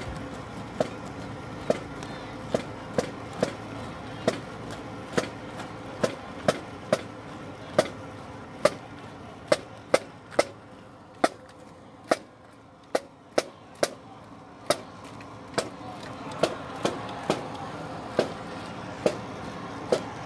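Marching drumline tapping out a marching cadence: single sharp drum-stick taps about once a second, with a quick run of three taps every fourth beat, keeping the band in step. Faint outdoor background noise lies underneath.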